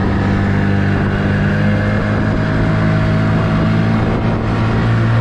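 Small boat's outboard motor running steadily under way, with an even low hum.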